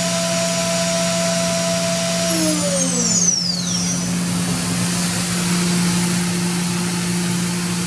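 Makino V55 5-axis machining center's spindle whining steadily at 20,000 RPM, then winding down about two seconds in with a falling whine as it is stopped, leaving the machine's steady low hum.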